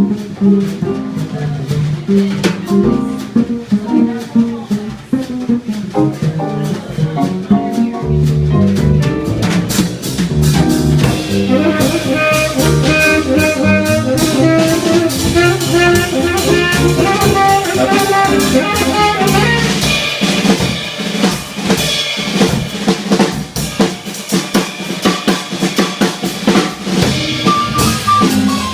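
A live jazz quartet with piano playing, the drum kit prominent with busy snare, rimshot and cymbal strokes; pitched melody lines come in more strongly partway through.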